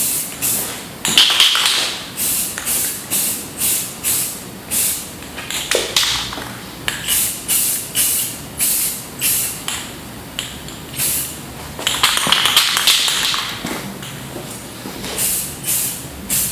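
Aerosol can of black enamel spray paint hissing in short bursts, about two a second, with longer sprays about a second in and again around twelve seconds in, as a light first coat goes onto a wheel.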